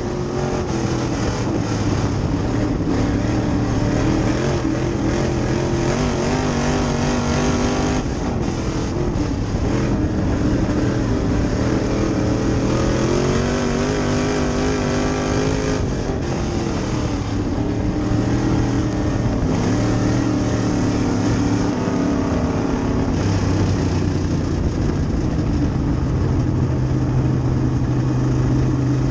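Sportsman dirt late model race car's engine heard from inside the cockpit, running hard at racing speed. Its pitch climbs and falls with the throttle, dropping off sharply about eight seconds in and again about halfway through.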